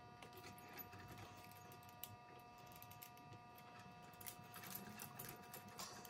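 Faint scattered clicks and scrapes of a hand driver tightening the bolts of a rubber winch line stopper clamped on a steel winch cable, a little busier near the end.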